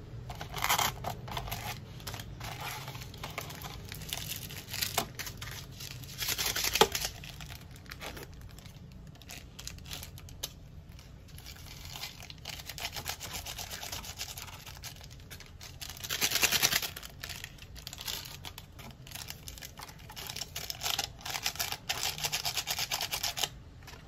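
Instant cup noodle packaging being handled: the paper-and-foil lid is peeled back and a seasoning sachet is torn open and shaken over the noodles, crinkling and tearing in several louder spells.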